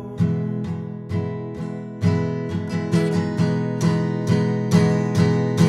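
Worship-song music: an acoustic guitar strumming chords over sustained chord tones, the strumming getting louder and busier about two seconds in.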